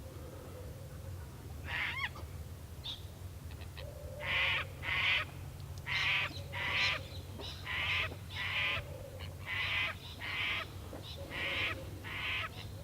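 A bird calling over and over in harsh paired notes, a pair about every two seconds from a few seconds in, over a steady low hum.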